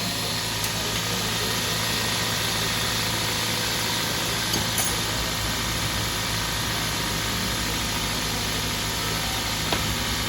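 Toyota Corolla Altis engine idling steadily and smoothly, its valve tappets freshly adjusted, so the earlier tappet clatter is gone. A couple of faint clicks sound midway and near the end.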